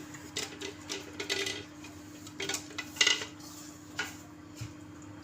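A utensil scrapes and clinks against a blender jar and strainer, scraping out blended parsley. It comes as a string of short knocks and scrapes, the loudest about three seconds in, over a faint steady hum.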